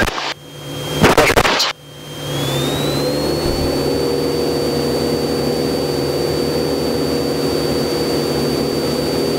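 Cessna 172's engine and propeller heard from inside the cabin at takeoff power on the takeoff roll: a steady drone with a thin whine that rises in pitch and then holds. In the first two seconds the sound cuts out abruptly a couple of times.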